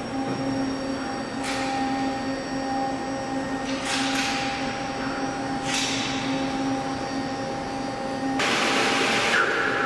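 Steady machine hum made of several held tones. Three short bursts of hiss come about 1.5, 4 and 6 seconds in, and a longer, louder hiss starts near the end.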